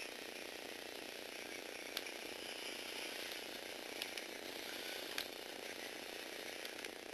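Small Lego Technic four-wheeled robot driving, its electric motor and plastic gear train whirring steadily, with a few sharp clicks about two, four and five seconds in.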